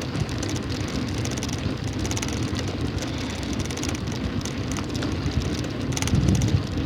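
Steady rush of wind over the microphone with road noise while riding a bicycle.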